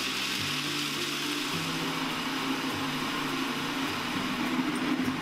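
Food processor motor switched on and running steadily, grinding roasted cashews into cashew butter. Soft background music plays underneath.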